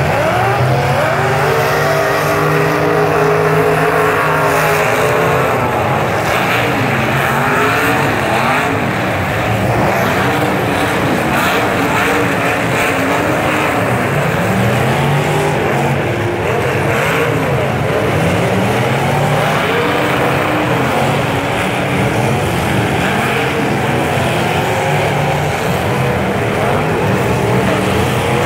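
Several demolition derby trucks' engines revving hard and easing off over and over, their pitches rising and falling against each other.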